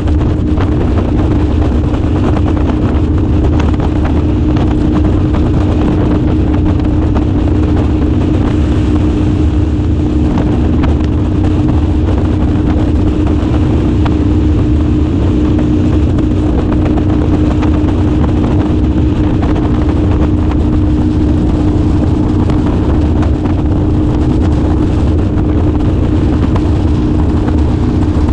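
Boat motor running steadily at cruising speed, a constant drone with a strong humming tone over a low rumble.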